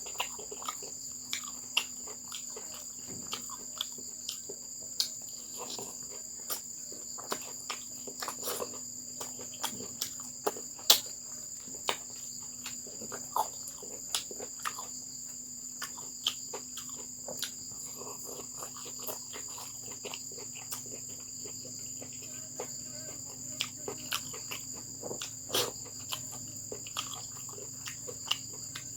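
Steady high-pitched chirring of crickets, unbroken throughout, with scattered small clicks and taps every second or so.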